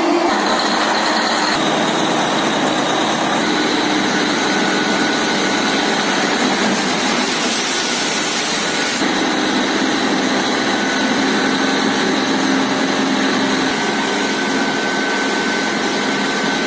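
Borewell rig's engine-driven air compressor running steadily and loudly, with a steady high whine over the drone. About seven seconds in, a burst of hissing lasts about two seconds.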